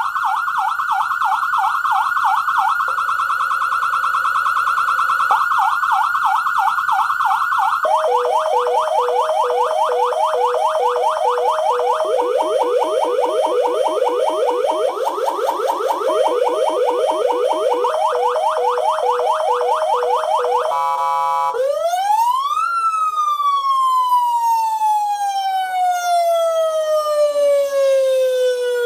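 X5 400 W dual-tone electronic siren sounding through its speaker, switching between tones. For the first eight seconds or so, two fast warbling tones sound together. Then a rapid repeating sweep sounds over a two-note hi-lo alternation. About 21 seconds in there is a short stutter, then one tone rises quickly and falls slowly, like a mechanical siren winding down.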